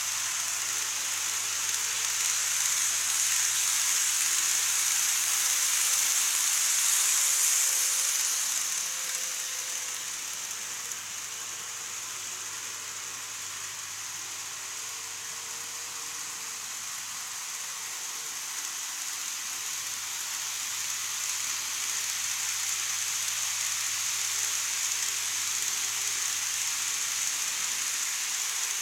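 N-gauge model electric trains running on elevated plastic track: a steady whirring hiss of wheels and motors. It swells about two to eight seconds in as a train passes close, fades, then swells again near the end as another train comes round.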